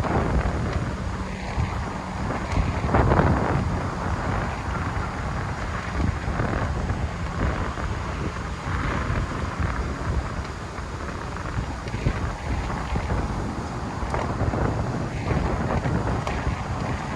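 Storm wind buffeting the microphone, a gusty rush that swells and eases.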